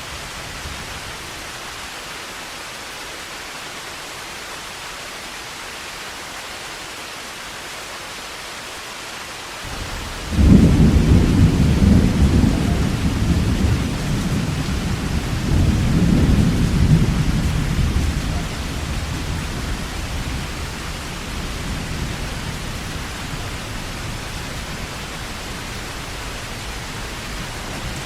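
Steady heavy rain falling. About ten seconds in, a long roll of thunder breaks in suddenly, swells again a few seconds later and rumbles slowly away beneath the rain.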